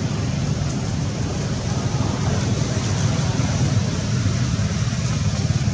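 Steady low rumbling noise with a fainter hiss above it and no distinct events.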